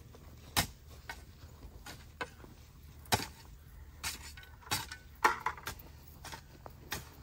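A shovel digging in soil and stones: a series of irregular sharp clinks and scrapes as the blade strikes into the ground. The loudest strike comes about five seconds in.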